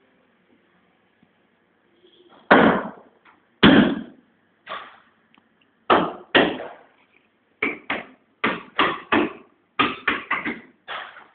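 A run of about a dozen sharp knocks or blows, starting about two seconds in and coming at uneven intervals, some in quick pairs. Each dies away quickly.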